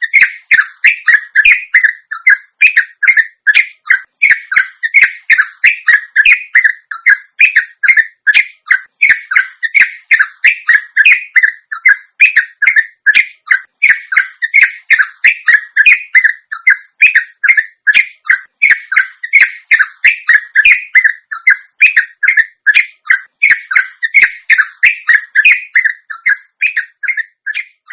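Yellow-vented bulbul (trucuk) giving a long, unbroken run of rapid chattering notes, about two to three a second. This fast rolling delivery ("ropel") is used as a lure recording to get other bulbuls to answer and sing.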